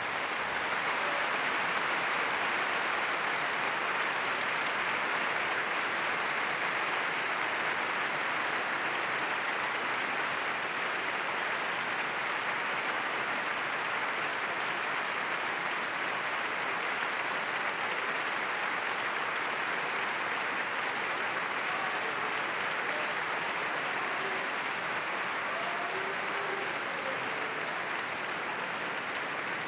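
Opera-house audience applauding, a dense, steady clapping that eases slightly toward the end.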